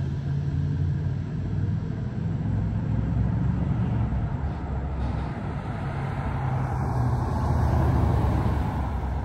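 1981 Jeep Scrambler (CJ-8) engine running as the Jeep drives by, growing louder to a peak as it passes about eight seconds in.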